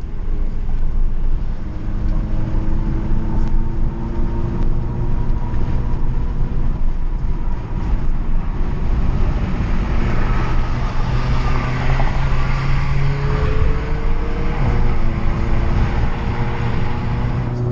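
Volkswagen MK7 Golf GTI's turbocharged 2.0-litre four-cylinder running steadily at cruise under tyre and road noise. The engine note drifts slowly up and down in pitch, with a brief dip about three quarters of the way through.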